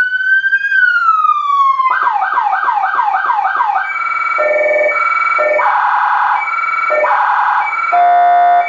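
Federal Signal SSP3000B electronic siren cycling through its tones: a wail sweeping down from its peak, then about two seconds of rapid yelp sweeps, then about four seconds of alternating high and low tones. Near the end a brief steady, buzzing air-horn tone.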